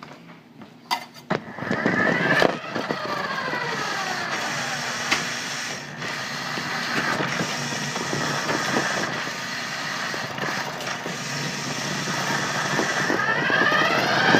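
Toy RC 4x4 truck's small electric motor and plastic gears whining as it drives, with the pitch sweeping up and down as it speeds up and slows, picked up by a phone riding on the truck. A few clicks come before the motor starts, a little over a second in.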